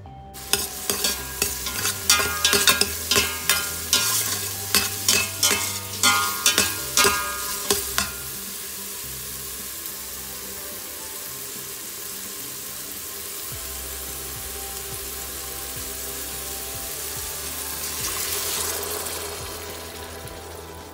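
Metal spoon scraping and clinking against a stainless steel pot as diced peppers are stirred, about two strokes a second for the first eight seconds. Then the peppers fry with a steady sizzle, which swells briefly near the end.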